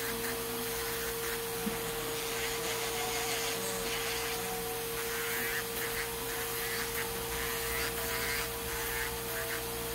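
Electric nail drill running at a steady speed, giving a constant hum. Its cylindrical grinding bit is filing down a thick toenail crusted with fungus.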